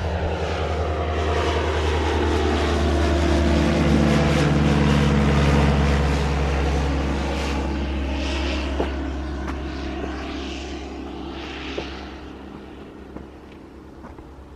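Propeller engine of a light tug aircraft at full power taking off from the gliding site, its note dropping in pitch as it passes, loudest about five seconds in and then fading steadily as it climbs away.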